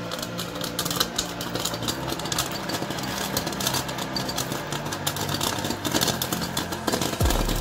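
Hot air popcorn popper running: a steady whir from its fan blowing hot air, with irregular sharp pops and rattles as the kernels burst and tumble out of the chute.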